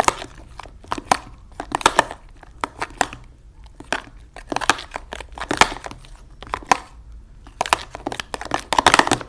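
Slime mixed with shaving cream being stirred and worked in a plastic tub: an irregular run of wet crackling, squishing and clicking noises in short bursts.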